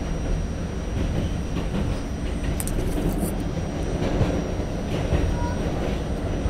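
R68-series New York City subway car running through a tunnel, heard from inside the front car: a steady low rumble of wheels on rail. A brief high hiss comes about two and a half seconds in.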